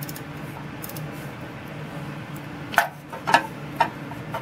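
Three sharp metallic clinks about half a second apart, near the end, as a steel tool knocks against the bolts and adapter at the engine's flywheel. A steady low hum runs underneath.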